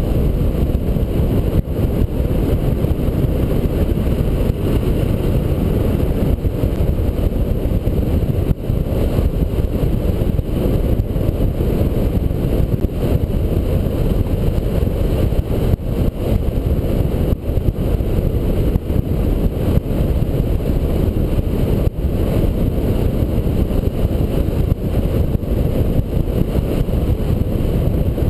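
Steady rush of wind over the microphone of a camera mounted on a flying hang glider, a loud low rumble of airflow.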